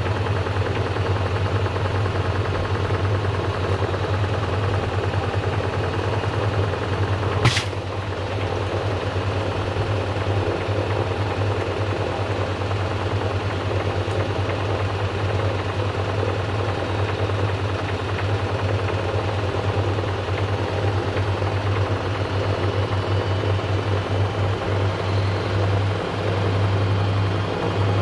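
Washing machine running with balloons and cubes tumbling in the drum: a steady motor hum under continuous rattling and knocking. One sharp bang about seven and a half seconds in.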